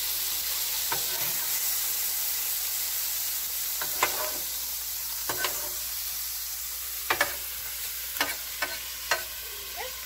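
Ground-beef sloppy joe mixture sizzling steadily on a hot flat-top griddle, while metal spatulas scrape and clink sharply against the griddle plate several times as the meat is turned and gathered.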